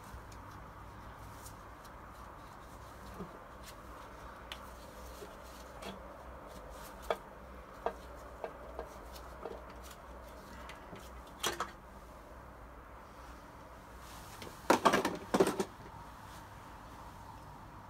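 Scattered light clicks and knocks of hands and tools handling the top end of a Toyota 4A-GE engine on a stand, with one louder knock near the middle and a short cluster of loud knocks about three-quarters through, over a steady faint hiss.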